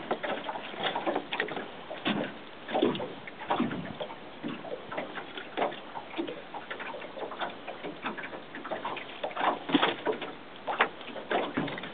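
Irregular knocks, taps and scuffs on a boat's floor, now sparse, now several close together, with the loudest near the end.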